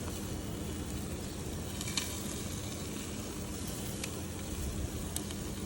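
Chicken legs sizzling on a hot grill: a steady hiss over a low rumble, with a few faint clicks.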